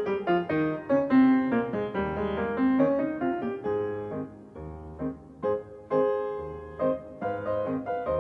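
Piano music: a melody of quick notes, with low bass notes coming in about two seconds in.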